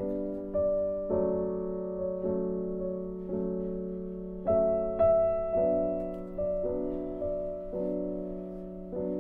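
Background piano music: a slow piece, notes struck about once a second and left to ring and fade.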